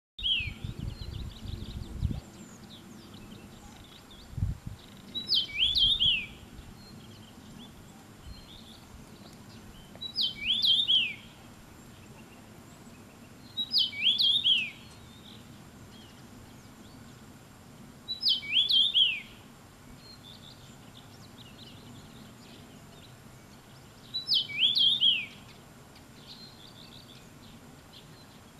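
Male common rosefinch singing its short whistled song: a quick phrase of gliding up-and-down notes, given six times with pauses of about four to five seconds between phrases.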